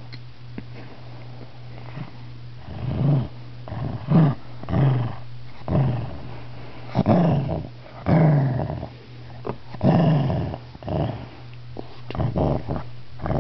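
Shih tzu growling in a string of short, rasping growls, about ten of them starting a couple of seconds in: the annoyed growl of a small dog disturbed while napping.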